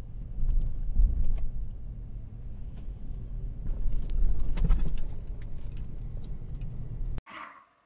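Car driving, heard from inside the cabin: a steady low road-and-engine rumble with light metallic jingling and rattles over it. It cuts off abruptly near the end.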